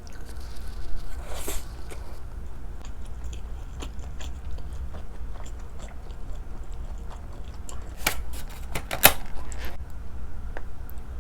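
Close-miked eating: chewing with wet mouth clicks and smacks, growing louder and crackly in short spells about a second and a half in and again near the end.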